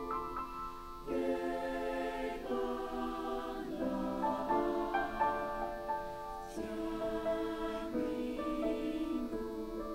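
Mixed choir of men's and women's voices singing held chords that shift every second or so.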